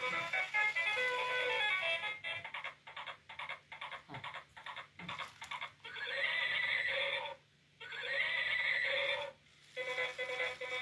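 Electronic toy horse playing a tinny tune, then clicking for a few seconds, then giving two electronic whinnies, each a little over a second long; the tune starts again near the end.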